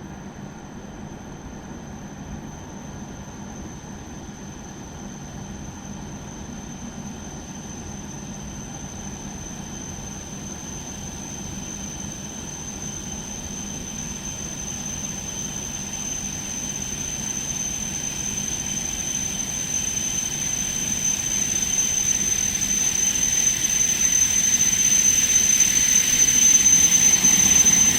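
Hokuriku Shinkansen train approaching, its running noise growing steadily louder, with a thin high-pitched whine that strengthens as it nears.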